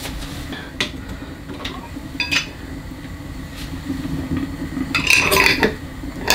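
Metal clinks and knocks of a small saucepan and metal jar lids being handled: a couple of single knocks, then a busier clatter about five seconds in, as lids just boiled to sterilise them are lifted out and set on glass jars.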